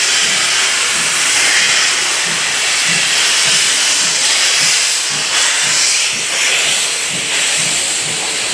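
Steam locomotive 58654, a JNR 8620-class engine, working hard: a loud, continuous steam hiss over a steady beat of exhaust chuffs about twice a second.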